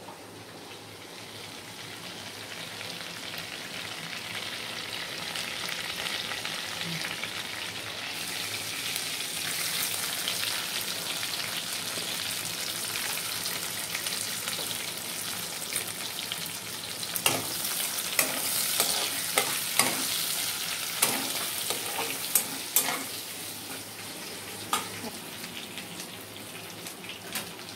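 Sliced onions and whole spices frying in oil in a kadai, a steady sizzle that grows louder over the first ten seconds or so. In the second half a spatula stirs them, with repeated sharp knocks and scrapes against the pan.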